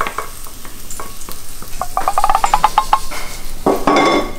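A fried egg sizzling in a frying pan while a spatula scrapes and taps against the pan to lift it out. A quick run of scraping ticks comes about two seconds in, and there is a louder noise near the end.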